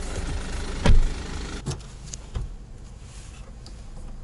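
Road and engine noise inside the cabin of a 2018 Mercedes A-class, a steady low rumble. A sharp knock about a second in is the loudest thing, with a couple of lighter clicks after it, and the noise gets quieter after about a second and a half.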